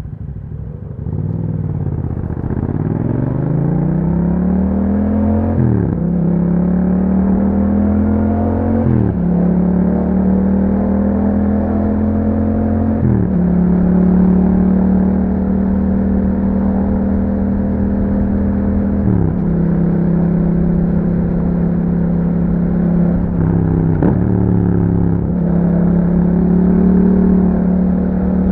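Yamaha MT-07's 689 cc parallel-twin engine through an Akrapovic exhaust with a dB killer, pulling away and revving up. The note climbs, then drops at each gear change, with about five shifts, the first three coming close together. Between the later shifts the engine holds a steady cruising note.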